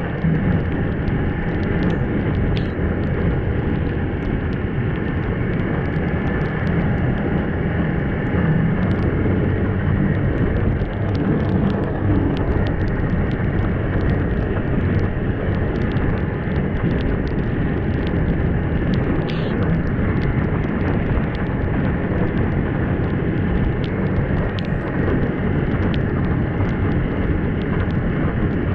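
Snowmobile engine running steadily as the sled travels along a packed snow trail, with scattered faint clicks.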